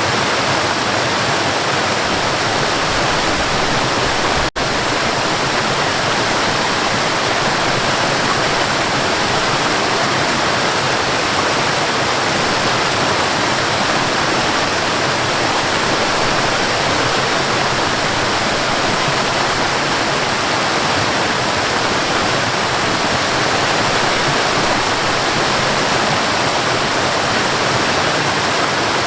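Waterfall: a steady, dense rush of falling water, broken by a split-second dropout about four and a half seconds in.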